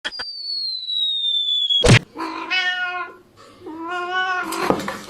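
A cat meowing about three times in the second half. Before that comes a thin, high whistling tone that falls slowly over the first two seconds and ends in a sharp click.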